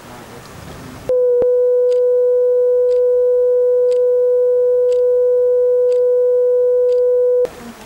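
A steady electronic beep tone on one mid pitch, starting abruptly about a second in and cutting off suddenly near the end after about six seconds. Faint ticks sound under it about once a second.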